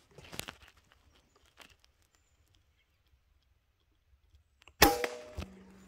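A single shot from a scoped hunting rifle fitted with a suppressor about five seconds in: a sharp crack with a short ringing tail, followed about half a second later by a duller knock.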